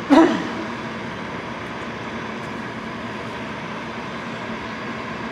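Gas furnace running with a steady mechanical whir and a faint hum, as during its start-up sequence while waiting for the hot surface igniter to light. Just after the start there is a brief loud sound that slides down in pitch.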